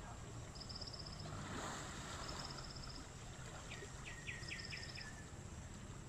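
River ambience with a steady hiss of moving water. Over it, a short high trill repeats about every one and a half to two seconds, and a bird gives a run of about six quick falling notes a little past the middle.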